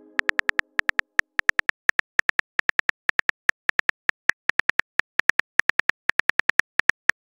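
Simulated phone keyboard typing clicks: a fast, slightly irregular run of short ticks, several a second, as a text message is typed letter by letter.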